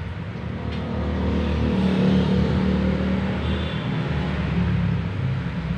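Low, steady rumble of a motor vehicle engine running, growing louder about a second in.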